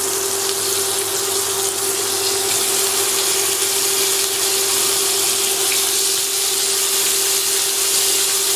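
Pork heart sizzling in hot melted butter in a frying pan, a steady hiss with a steady hum underneath.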